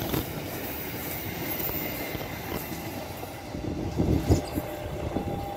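Passenger train coaches rolling past on the track, the wheels clattering over the rail joints as the train draws away. A few louder knocks come about four seconds in as the last car goes by.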